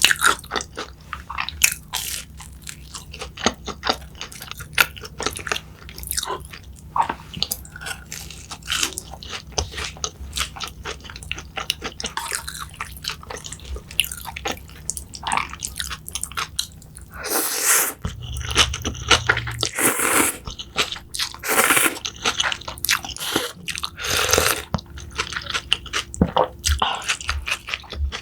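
Close-miked eating: a person biting and chewing food, with crisp crunching and many small mouth clicks, and several louder crunchy bites in the second half.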